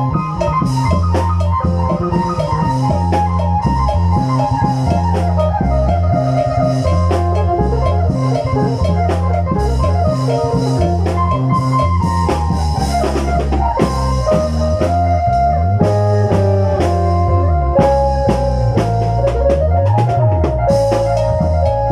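Isan lam phloen band music: a plucked phin melody over a moving bass line and steady drumming.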